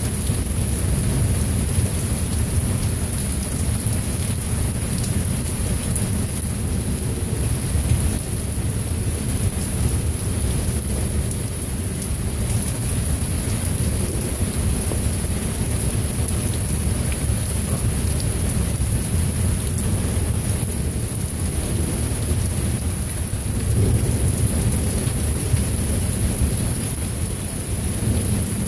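Heavy rain pouring steadily over continuous rolling thunder, a low rumble that never stops and swells a little near the end.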